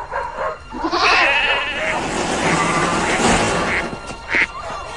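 Animals crying out, with quivering, bleat-like calls, over dramatic background music.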